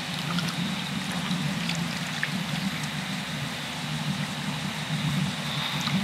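Shallow tidal water trickling and lapping over the mud flat, a steady wash with a low rumbling undertone and small scattered clicks and pops.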